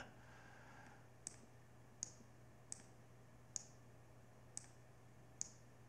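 Six faint, sharp computer mouse clicks, spaced roughly one every second, over a faint steady low hum.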